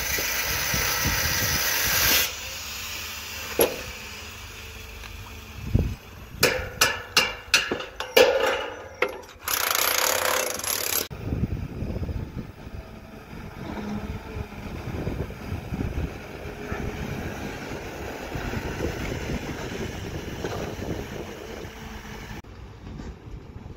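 An electric demolition hammer runs for about two seconds, then a run of sharp knocks and another loud burst of machine noise. From about halfway, a hydraulic excavator's diesel engine runs with a steady low rumble while it digs, and the sound cuts off near the end.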